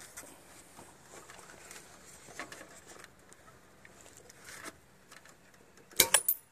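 Faint clicks and rubbing as hands work a small metal light-mounting tab against a bike rack bracket, then near the end a sharp metallic clink with a brief ring.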